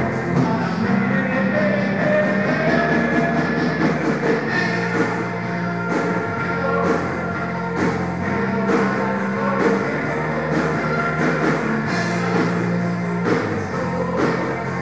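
Rock band playing live through the PA: drum kit keeping a steady beat under electric bass and guitar. The bass holds each low note for about two seconds before moving to the next.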